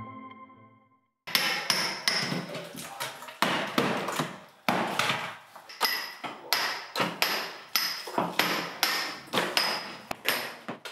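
Hammer striking a chisel to chip hard cement plaster off a stone wall: sharp strikes about two a second, several with a metallic ping. Background music fades out in the first second, before the strikes begin.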